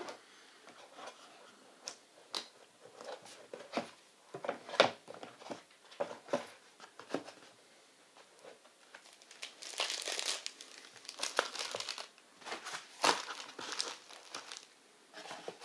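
Paper and cardboard packaging being handled: crinkling and rustling of paper inserts and card, with scattered short clicks and knocks from the box, the sharpest about five seconds in, and a denser spell of rustling about ten seconds in.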